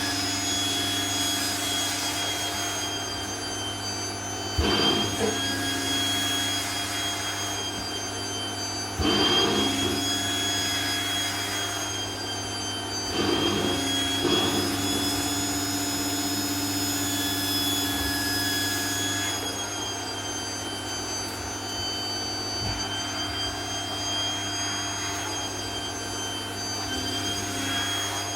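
Vacuum cleaner running steadily with a high motor whine, with a louder whoosh of suction four times as the nozzle is worked over a dress.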